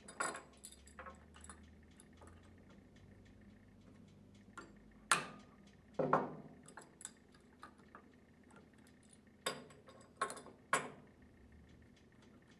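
Scattered clinks and knocks of hand tools and metal parts handled on a wooden workbench, with a couple of louder knocks about five and six seconds in and three more close together near the end.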